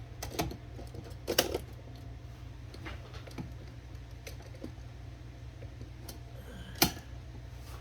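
Smith Premier No. 10 typewriter mechanism clacking as it is worked by hand: a handful of separate, irregular strikes, the loudest about a second and a half in and again near the end.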